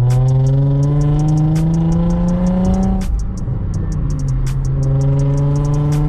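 Car with a nearly straight-piped exhaust (non-resonated test pipes and a single muffler) accelerating. The engine note climbs steadily for about three seconds, drops at a gear change, and climbs again in the next gear. Background music with a ticking beat plays along.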